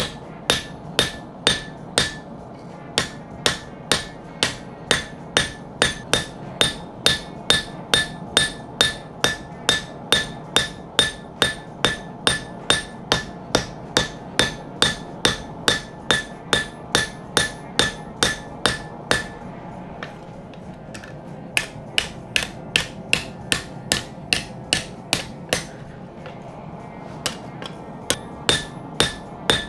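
Hammer forging spring steel on an anvil: a steady run of ringing strikes, about two to three a second, pausing briefly twice. A steady rushing noise runs underneath.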